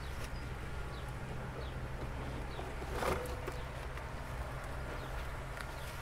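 Honeybees buzzing around an open hive over a steady low background hum, with a single sharp click about three seconds in as the propolised queen excluder is worked free.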